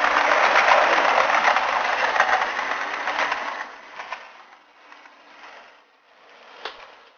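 Hornby InterCity 125 model train running past close by, its wheels clattering over the track along with its small motor. About three and a half seconds in it falls away to a faint rattle as the train moves off, with one sharp click near the end.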